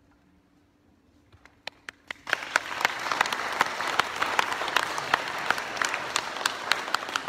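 Audience applauding: near silence at first, a few scattered claps, then full applause setting in about two seconds in, with one clapper close by standing out, about three claps a second.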